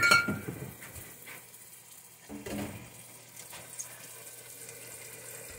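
A sharp glass clink with a brief ring at the start, as a bottle is set down among others. Then the faint, steady bubbling hiss of a large stockpot of water at a rolling boil.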